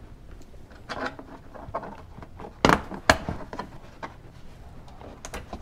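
Plastic push-in trim clips pressed into a car's plastic engine-bay cover panel by hand, giving a few sharp clicks. The two loudest come close together in the middle.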